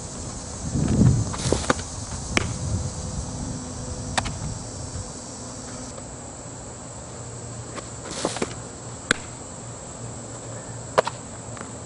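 Insects buzzing steadily in the background, with several sharp pops of a softball smacking into leather gloves as it is pitched and thrown back. A low rumble about a second in.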